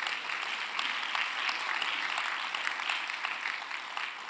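Congregation applauding: many hands clapping in a steady patter that eases slightly near the end.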